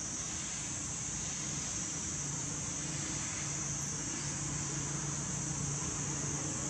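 Steady high-pitched insect drone, with a low steady hum joining about two seconds in.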